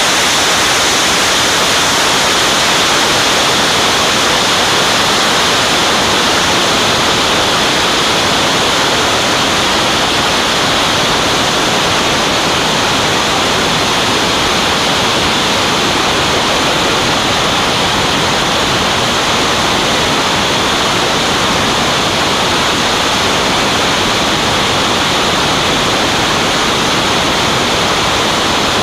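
Steady, loud rush of airflow over a wing-mounted camera's microphone in flight: an even hiss with no engine tone standing out.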